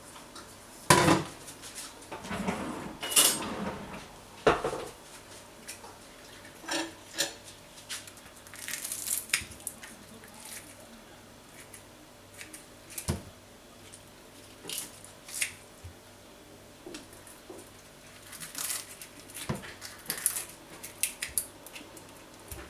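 Metal kitchen scissors snipping crisp fried spring rolls into pieces, with scattered clicks and light clinks as the scissors and the pieces touch a ceramic plate. The loudest snaps come about a second in and around three seconds.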